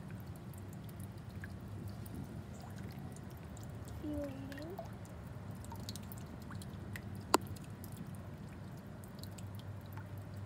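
Faint water dripping and trickling in a garden fish pond over a steady low hum, with one sharp click a little after seven seconds in.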